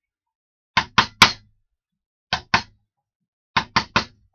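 Sharp knocks in quick clusters: three, then two, then three, with each cluster lasting well under half a second.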